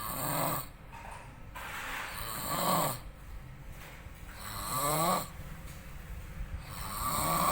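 A person in deep sleep snoring loudly, four snores about two and a half seconds apart, each swelling up and then breaking off sharply, with quieter breathing in between.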